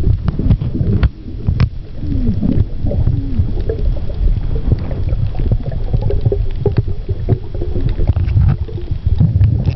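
Underwater sound picked up by a camera in a housing: a loud, steady low rumble of water moving over the housing, with scattered sharp clicks and a few short swooping tones about two to three seconds in.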